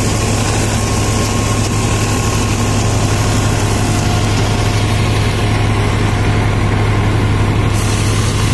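New Holland 5620 tractor's diesel engine running at a steady speed, heard close up, with a strong even low hum.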